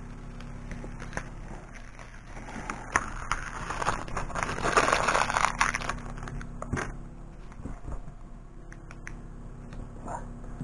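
Adhesive vinyl crackling as it is peeled (weeded) off its backing sheet, with scattered clicks, loudest about halfway through.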